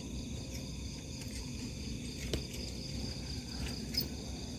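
Crickets chirping steadily in a pulsing high trill over a low rumble, with a couple of faint clicks, the sharper one near the end.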